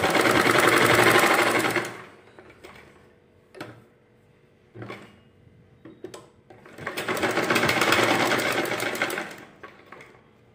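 Black domestic sewing machine stitching in two runs of about two seconds each, with a quieter gap of a few seconds between them broken by a few single clicks.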